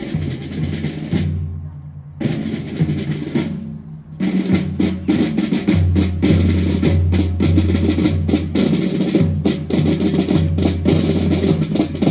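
Drums playing: rolling snare drum over bass drum, with two short breaks in the first four seconds, then continuous.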